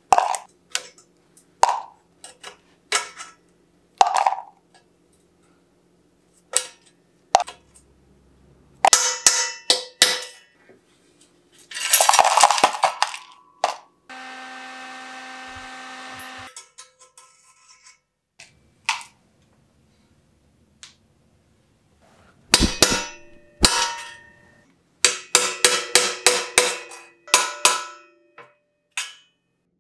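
Sharp metal clicks, taps and clinks of hand tools working pieces of a seized seat post out of a steel bike frame's seat tube, with bits dropped into a plastic cup. A rattling scrape comes a little before the middle, then a steady whir for about two seconds.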